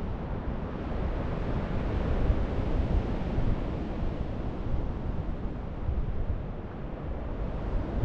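Steady rushing noise of sea surf and wind, with wind buffeting the microphone in irregular low gusts.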